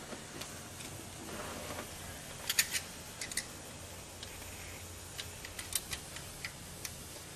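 Metal hand tools, a wrench and screwdriver, clicking against the rocker-arm valve adjusters of a 1996 Honda Civic engine during a valve adjustment. A quick cluster of sharp clicks comes a couple of seconds in, then scattered lighter clicks, over a faint low hum.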